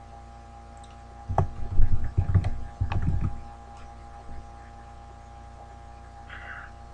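Typing on a computer keyboard: a quick run of keystrokes, starting about a second and a half in and lasting about two seconds, entering "localhost" into the Network Domain field, over a steady electrical hum.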